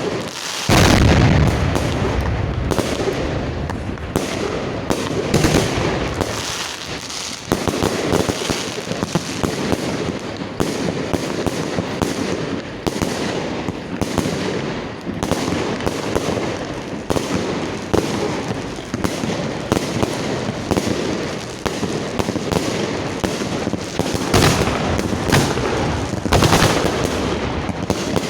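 Fireworks display heard close to the launch site: a dense, rapid barrage of shell launches and bursts that goes on without a break, with a heavy bang about a second in.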